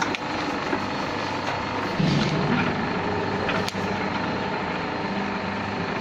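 Electric copper-cable stripping machine running steadily under load as a thick cable feeds through its rollers and blade, its motor and gearbox giving a continuous hum. The hum grows heavier about two seconds in, and a single sharp click comes a little past the middle.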